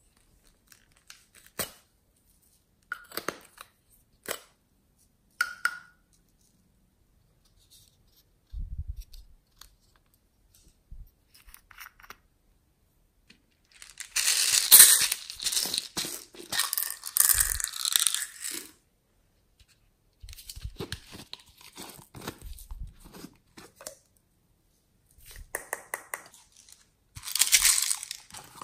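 Hands opening small plastic toy containers of slime add-ins: a few sharp plastic clicks and taps, then longer stretches of rustling, crackling plastic noise, strongest about halfway through.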